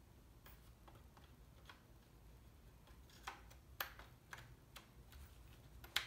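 Faint, irregular light clicks and taps from hands handling small objects at a desk, over a low steady hum, with a sharper click at the very end as a hand meets the Mac Pro's metal case.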